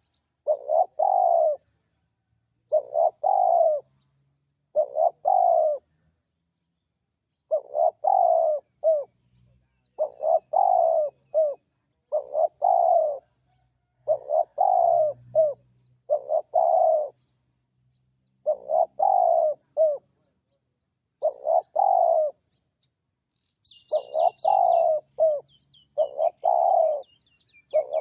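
Spotted dove cooing over and over, each phrase two or three notes long, with a bird decoy drawing in wild doves. Small birds chirp faintly in the background, with a louder run of chirps near the end.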